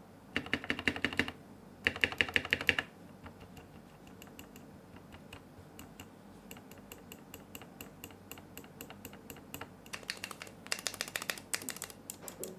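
Keys of a Pressplay Apollo61 mechanical keyboard pressed rapidly in bursts, the stabilized keys being tested for rattle after lubing the stabilizers; a slight rattle is left, mostly on the right side of the spacebar. Two loud bursts of clicks in the first three seconds, then sparse faint clicks, then another burst near the end.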